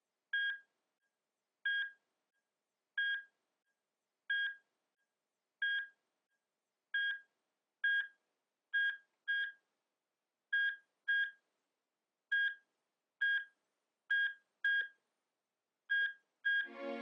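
Hospital heart monitor beeping, one short, high beep about every 1.3 seconds at first. From about halfway through, the beeps come faster and in closer pairs, the sign of a quickening pulse.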